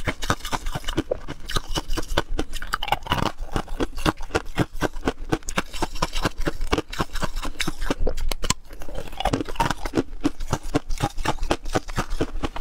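Ice cubes being bitten and chewed close to the microphone: a dense, irregular run of sharp crunching cracks.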